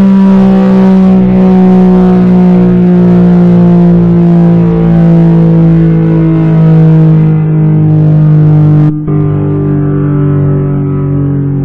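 Warning siren winding down, one loud tone with overtones sliding slowly lower in pitch. About nine seconds in, the sound cuts abruptly to another siren recording, a duller, lower tone still falling slowly.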